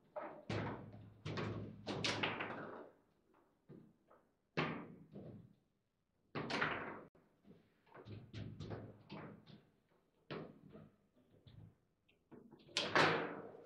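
Foosball table in play: the ball is struck by the plastic figures and the rods knock against the table, making a run of sharp, irregular knocks and bangs with short ringing tails.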